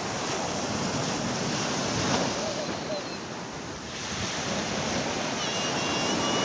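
Sea waves washing in and out, swelling and easing, with wind buffeting the microphone. A brief high-pitched warbling sound comes about a second before the end.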